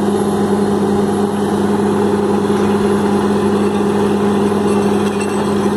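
Borewell drilling rig running steadily: a constant, loud engine drone with a strong low hum, while water and froth are blown up out of the borehole around the drill pipe.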